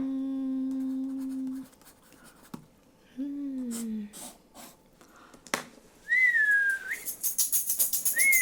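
A Korean shaman's voice holding one low hummed note, then a shorter falling one, followed by two high whistles that dip in pitch. About seven seconds in, a fast jingling of ritual bells begins as the divination starts.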